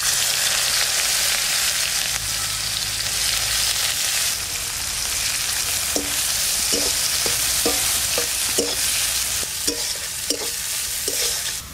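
Sliced red onions sizzling in hot oil in a metal kadai, the sizzle starting suddenly as they are dropped in. About halfway through, a spatula stirring them knocks and scrapes against the pan several times.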